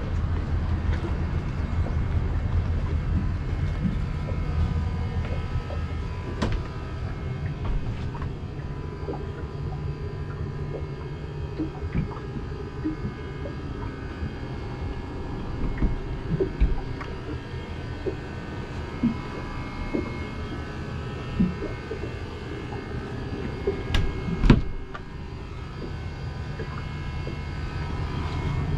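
Steady low rumble, strongest at the start and easing off after the first few seconds. Scattered clicks and knocks from handling and moving about run through it, and a pair of sharp knocks near the end is the loudest.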